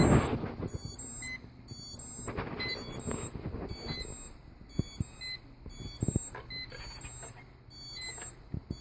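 Hubsan H501S drone beeping, a short high-pitched chirp repeated about once a second, with a few handling knocks in between. The beeping is the fault warning that points to a bad connection between a motor and the power board; here the motor connector module had been torn off the board in a crash.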